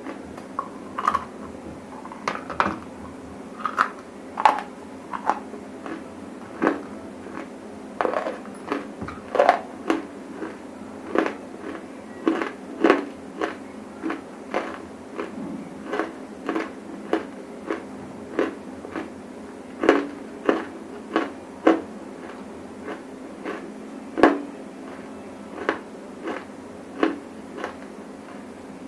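Close-miked crunching of dry grey eating clay (black hole nakumatt): crisp dry cracks as lumps are bitten and broken, irregular, about one or two a second.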